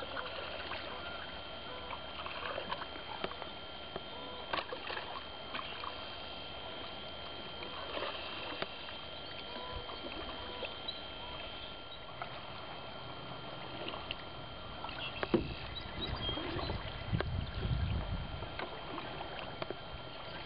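Canoe paddle strokes: the blade dipping and pulling through calm water with small splashes and drips, in a steady rhythm. The water noise grows louder in the last few seconds as the canoe comes close.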